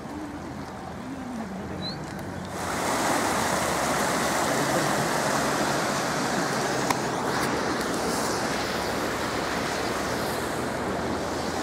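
Muddy floodwater rushing through a breached earth bank and down a channel, a steady rushing noise that grows louder about two and a half seconds in.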